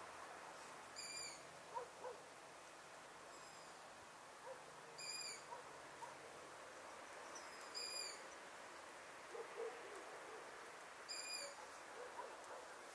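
A small owl calling: a short, high note four times, roughly every three to four seconds, over a faint steady hiss.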